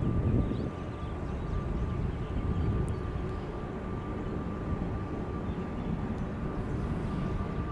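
Distant low rumble of an approaching EMD GP9 diesel locomotive's two-stroke engine, with a thin steady high tone over it.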